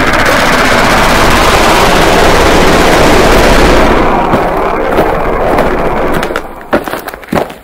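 A loud, dense crackling roar whose high end falls away about four seconds in, followed by scattered sharp cracks near the end.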